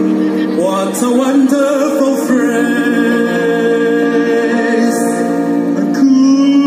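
Live amplified singing over a string ensemble of violins and cello, with a long held sung note in the middle.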